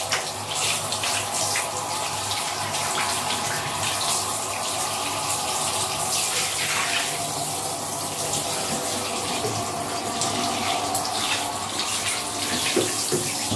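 Handheld shower head spraying water steadily onto a small dog's wet coat and the tiled floor, with small splashes as the coat is rinsed.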